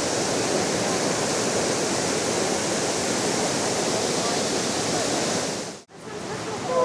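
Steady rush of flowing water, an even hiss with no rhythm, that cuts out abruptly near the end.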